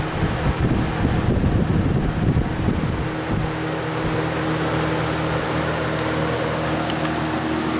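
Lasko 20-inch box fan (model 3723) running on high: a steady motor hum under rushing air, with the fan badly out of balance. For the first few seconds its airflow buffets the microphone, then the sound settles steadier.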